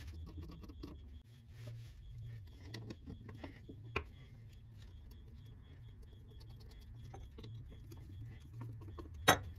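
Small metal parts of a lathe apron clicking and tapping as they are handled and fitted by hand, with one sharp metallic click near the end, over a low steady hum.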